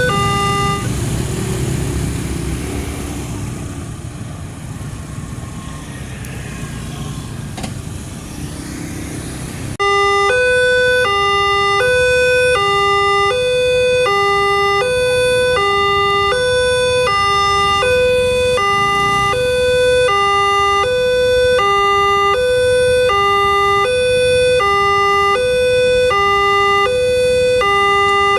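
Railway level-crossing warning siren, an electronic two-tone siren alternating between two pitches about once a second. For the first ten seconds it is buried under a fading low rumble, typical of a train going over the crossing. About ten seconds in the sound cuts abruptly to the siren alone, loud and clear.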